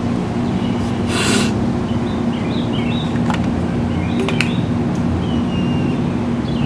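A nasal spray pump squirted up a nostril gives one short hiss about a second in, over a steady low hum.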